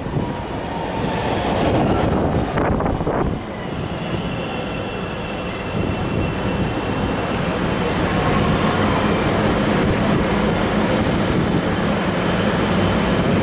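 Bombardier 5000-series rapid-transit train pulling in along the platform and slowing to a stop, with a dense rumble of wheels and running gear and a steady high whine from its electric drive. The sound grows a little louder as the cars draw level.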